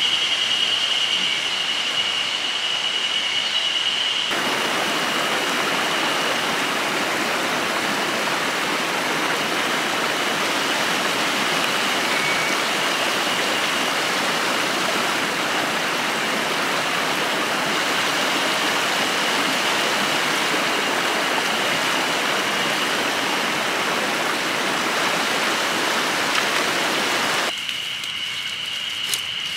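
Steady rushing of running water, as of a forest stream, with a thin steady high tone above it. The rush grows fuller about four seconds in and drops back near the end.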